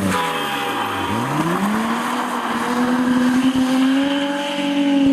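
BMW E30 rally car's engine driven hard: the engine note falls steeply over the first second, then climbs again and holds high as the car accelerates.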